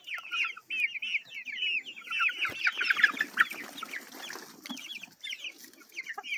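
A flock of young chickens cheeping, many short high calls overlapping, busiest and loudest about three seconds in.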